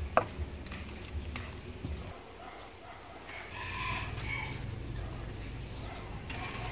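A rooster crows once, about halfway through. A spoon clinks against a steel mixing bowl near the start, and a low steady hum comes in around the middle.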